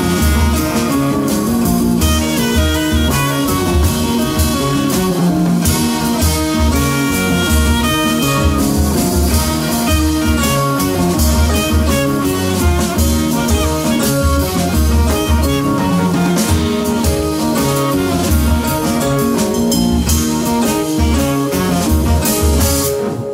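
A live jazz-hop band playing a steady groove on electric guitar, electric bass, keys and drum kit, with a saxophone in the line-up. The music stops abruptly at the very end as the track finishes.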